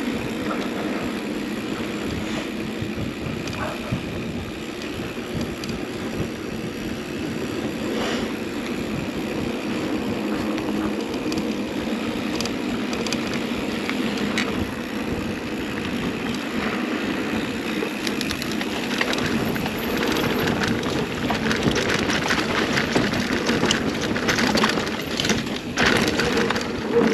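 2021 Scott Spark 970 full-suspension mountain bike rolling down a dirt trail: steady tyre noise and drivetrain chatter with scattered knocks and rattles over bumps, which become busier in the last several seconds.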